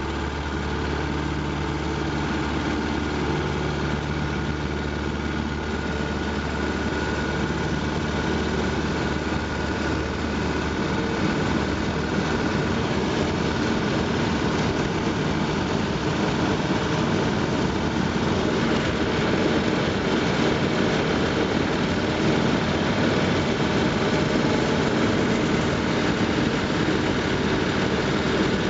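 1940 Aeronca 65TC's Continental A-65 four-cylinder engine and propeller heard from inside the cockpit through the takeoff and climb. The engine note changes about eleven seconds in and then runs a little louder, with more wind noise.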